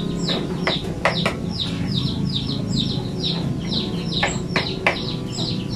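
Chicks peeping without pause, a quick run of high, falling cheeps several times a second. A few sharp clinks come from a serving spoon on plates about a second in and again near four to five seconds.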